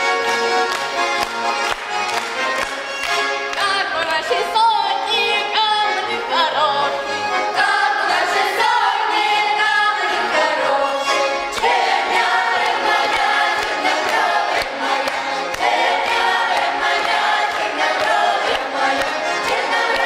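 Children's folk ensemble singing a Russian folk song together in chorus, accompanied by an accordion.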